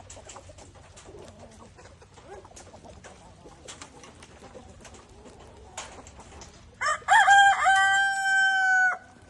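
A rooster crows once, loudly, about seven seconds in: a short rising start, then a long held note of about two seconds that cuts off. Before it, only faint clucks and small clicks from the feeding flock.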